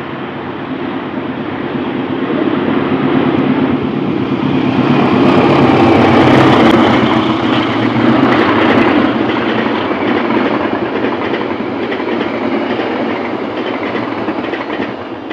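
A diesel-electric locomotive hauling a passenger train passes close by. Its engine drone builds to its loudest about six seconds in, then the coaches run past with a steady noise of wheels on rail, which starts to fall away at the very end as the train leaves.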